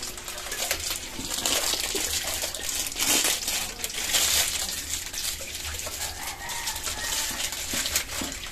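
Kikiam frying in hot oil in a wok, a steady sizzle with scattered crackles and pops. A chicken clucks in the background.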